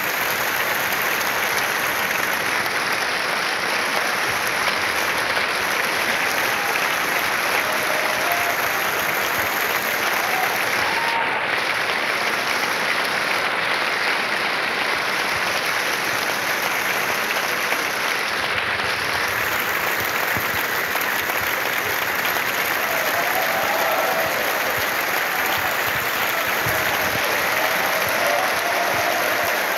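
Large theatre audience applauding steadily in a sustained ovation.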